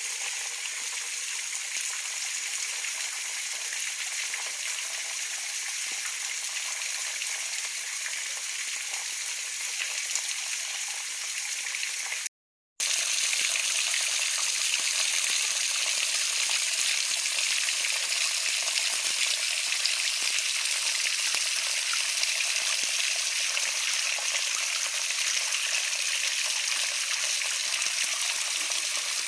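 Steady rush of flowing water. It cuts out for about half a second some twelve seconds in, then returns a little louder.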